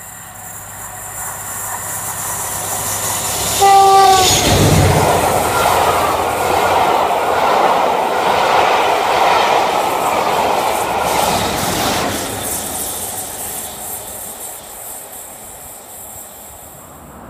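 Diesel-hauled passenger train approaching and passing at speed. The locomotive sounds one short horn note about four seconds in, then comes a loud rush and clatter of wheels as the coaches go by, fading away over the last few seconds.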